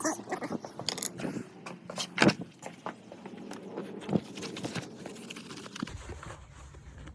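Irregular clicks and knocks of plastic body panels, clips and fasteners being handled and pressed into place on a dirt bike, with the sharpest knock about two seconds in.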